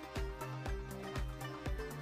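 Background music with a steady beat, a low thump about twice a second under a bass line and melody.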